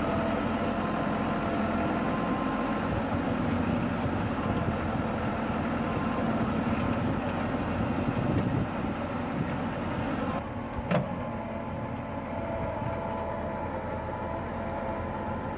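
Massey Ferguson 385 tractor's four-cylinder diesel engine running steadily while it powers the rear backhoe digging sand, with a thin steady whine over the engine and one sharp click about eleven seconds in.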